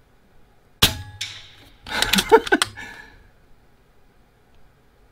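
Benjamin Kratos .22 PCP air rifle firing once, a sharp crack about a second in, followed a second later by a short run of metallic clicks and clatter.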